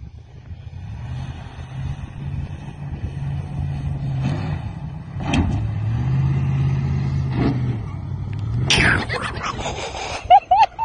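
A full-size Ford Bronco's engine running hard and revving up and down as the truck speeds and slides on loose dirt, getting louder as it comes closer. About nine seconds in there is a loud rush of noise, and near the end a few short, sharp, loud high sounds.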